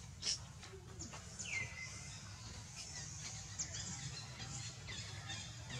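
Several short, high chirping animal calls, the clearest one falling in pitch, over a steady low rumble, with a sharp click just after the start.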